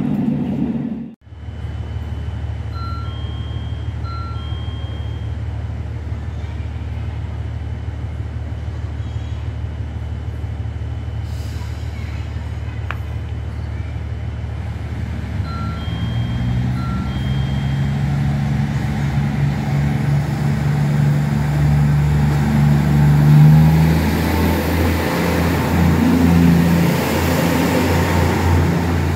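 A KiHa 75 diesel railcar's engine running, its pitch rising and growing louder from about halfway through as the railcar draws in along the platform, with a hiss near the end. A steady low hum lies under it, and a pair of short electronic chime tones sounds twice.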